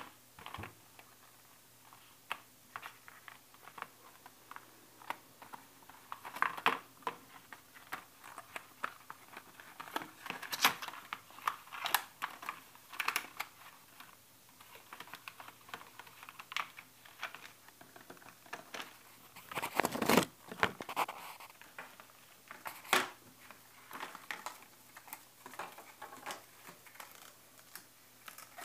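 Packaging of a small USB hub handled by hand: the cardboard box and a clear plastic bag rustling and crinkling, with many irregular clicks and taps. The handling is busiest and loudest about twenty seconds in.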